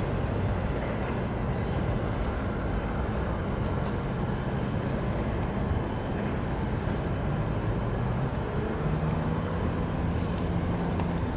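Steady low engine rumble with a faint hum, joined by a low steady drone about eight seconds in.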